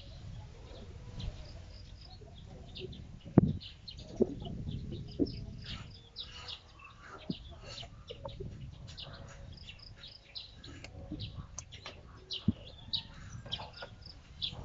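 Scattered plastic clicks and knocks from handling an LED headlight bulb and its wiring connector in a car's engine bay, the sharpest about three and a half seconds in. Chickens and other birds cluck and chirp in the background throughout.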